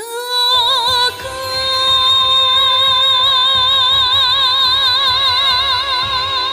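A singer holds one long high note with wide vibrato, scooping up into it at the start, over orchestral pop-ballad accompaniment.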